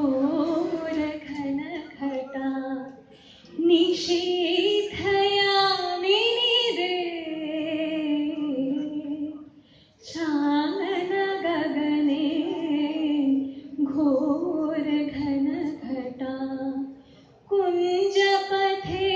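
A woman singing solo into a handheld microphone in long, held, wavering phrases, with short breaths between phrases about 3, 10 and 17 seconds in.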